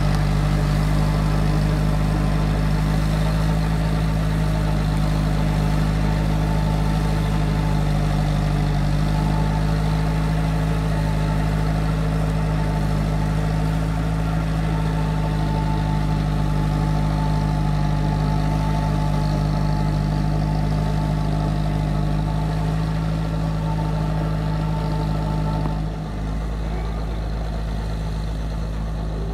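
Massey Ferguson 185 tractor on crawler tracks, its four-cylinder diesel engine running steadily as it works through a flooded paddy field. Near the end the sound dips briefly and settles a little quieter.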